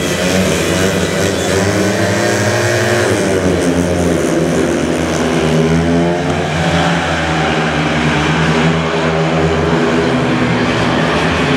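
Several single-cylinder 500cc speedway bike engines racing at full throttle, their pitch rising and falling as the riders accelerate and shut off for the bend.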